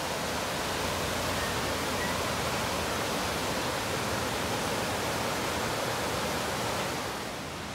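Fast-flowing mountain river rushing over a rocky bed: a steady whitewater hiss that drops a little near the end.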